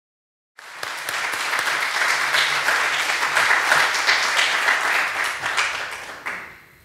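Audience applause, cutting in suddenly about half a second in and dying away near the end.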